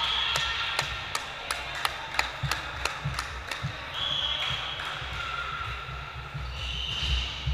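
Indoor volleyball game sounds on a wooden court: a quick run of about ten sharp taps in the first few seconds, roughly three a second, then a few short high squeaks of shoes on the hardwood floor over the low rumble of the hall.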